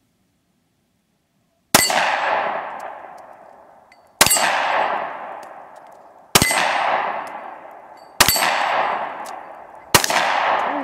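Five shots from a Smith & Wesson M&P Shield 9mm pistol, the first nearly two seconds in and the rest about two seconds apart, each blending with the clang of a steel plate target and a long ringing fade.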